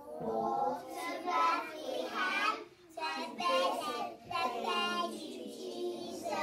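A group of young children singing together, in phrases with short breaks between them.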